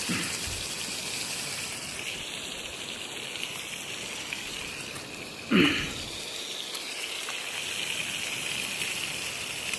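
Steady rushing of a river flowing past. About halfway through, a brief vocal sound falls in pitch.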